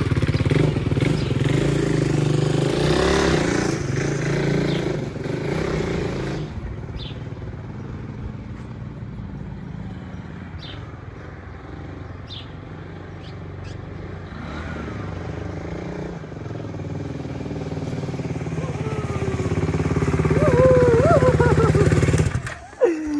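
KTM Duke 390 motorcycle's single-cylinder engine running as the bike rides off. The engine grows fainter through the middle, then louder again as the bike comes back, and it cuts off suddenly just before the end.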